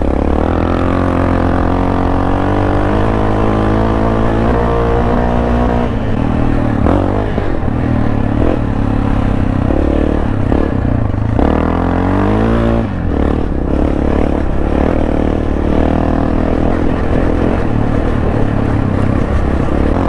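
Yamaha XT660R's 660 cc single-cylinder four-stroke engine, breathing through an Akrapovič titanium exhaust, running under load on a gravel track. The revs climb over the first few seconds, climb again and dip briefly about two-thirds of the way through, then hold steady.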